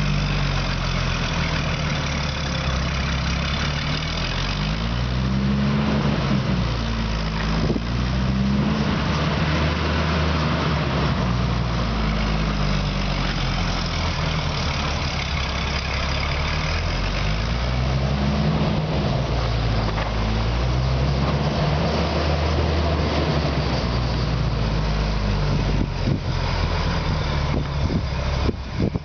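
Oil well pumpjack's engine running steadily, its pitch rising and falling in a slow repeating cycle.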